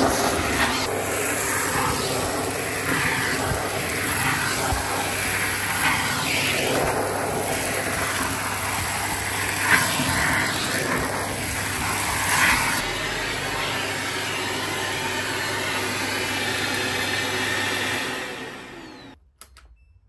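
Shark PowerDetect Pet vacuum cleaner running with a steady whine and rush of suction, with brief crackles as grit and dust are sucked off the stair carpet. The motor sound dies away near the end.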